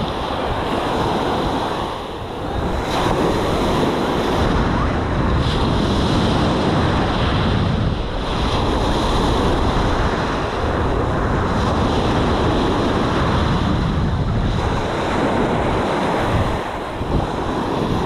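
Small ocean waves breaking and washing up the sand, steady and fairly loud, with wind buffeting the microphone.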